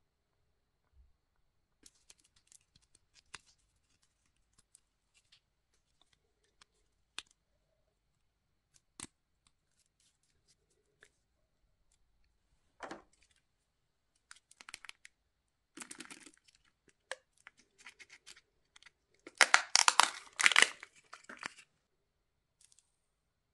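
Hands handling small plastic toys and crinkly packaging: scattered light clicks and rustles, with a louder, longer crinkling rustle near the end.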